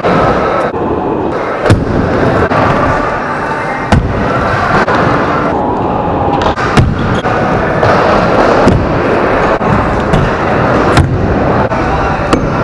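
Stunt scooter wheels rolling on wooden skatepark ramps, a steady loud rumble broken by several sharp knocks of the scooter landing and hitting the ramps.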